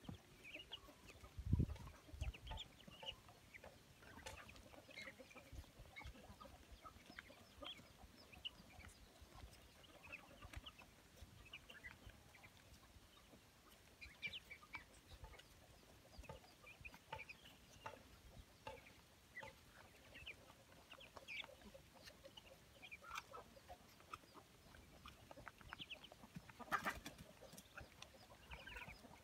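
A flock of ducklings faintly peeping and chirping in short, scattered calls while they feed. A loud low thump sounds about one and a half seconds in.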